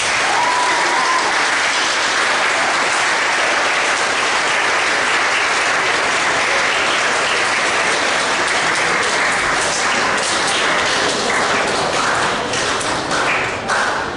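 An audience of students applauding steadily, thinning to scattered individual claps over the last few seconds.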